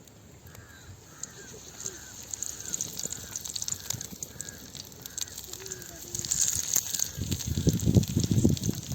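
Oil sizzling and crackling on a dosa tawa under a banana-leaf-wrapped chicken parcel, getting louder and heavier about seven seconds in. A bird calls over and over in the background during the first half.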